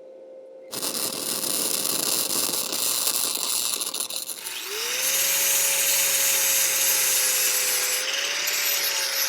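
Handheld electric power tool working steel: a harsh grinding noise starts abruptly about a second in, and about four seconds in a motor whine rises and then holds steady.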